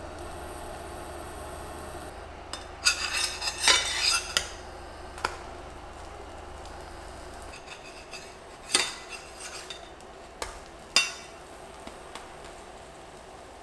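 Metal spatula scraping and knocking against a de Buyer stainless-steel frying pan while turning pancakes: a quick run of clatters about three seconds in, then a few single knocks later on.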